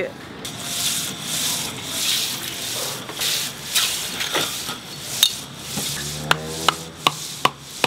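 Glass soda bottles scraping and clinking through crushed ice in a stainless slush cooler as one is pulled out, followed by a few sharp clinks and the glugging of supercooled Coke poured from the bottle into a cup, where it comes out as slush.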